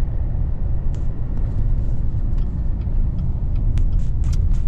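Steady low rumble of a pickup truck driving, engine and road noise heard from inside the cab, with a few light clicks near the end.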